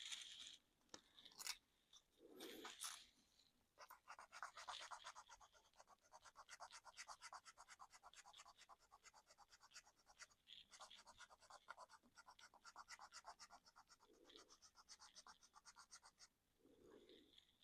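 Faint, rapid back-and-forth scrubbing on a plastic 3D-printed RC car body, several strokes a second, wearing away paint. It starts a few seconds in, breaks off briefly midway, and has a few soft handling thumps around it.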